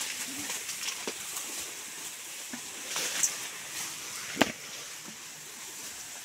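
Tall grass rustling and brushing as elephants push through it, with a few sharp snaps; the loudest snap comes about four and a half seconds in.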